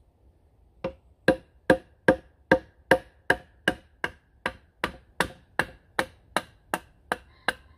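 A wooden baton knocking on the spine of a knife driven into a dry, dead ash stick: batoning to cut the wood into firewood. About eighteen steady, even knocks, about two and a half a second, starting about a second in.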